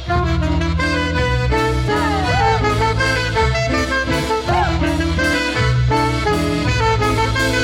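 A cumbia band playing an instrumental passage between sung verses, over a strong, rhythmic bass line.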